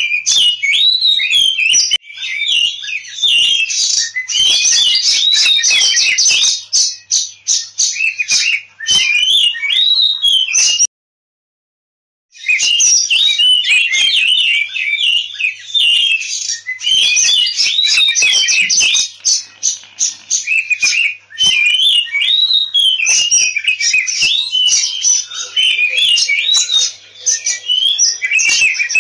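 Oriental magpie-robin (kacer) singing its excited 'ngobra' fighting song, a fast, unbroken stream of varied sliding whistles and chattering notes, of the kind used to provoke a caged kacer into singing. The song cuts out completely for about a second and a half a little over a third of the way in, then resumes.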